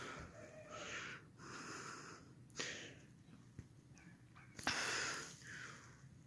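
Kittens hissing: a series of short, faint, breathy hisses, with a sharper, louder one about two and a half seconds in and the loudest nearly five seconds in. It is the defensive warning of young kittens that don't want to be approached.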